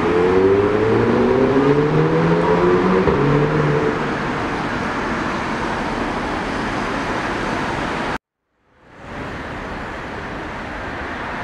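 Street traffic noise, with a motor vehicle's engine rising in pitch over the first few seconds as it accelerates. About two-thirds of the way through the sound cuts off for half a second, then steady traffic noise fades back in.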